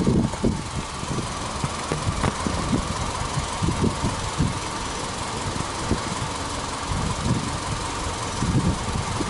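Subaru EJ20 2.0-litre flat-four engine idling, heard at the open engine bay: a steady hum over an uneven low rumble.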